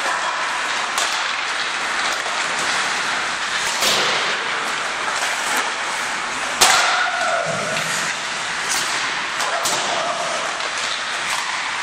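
Hockey pucks cracking off sticks and banging into the rink boards during warm-up, a sharp hit every second or two, the loudest about six and a half seconds in, over steady rink background noise.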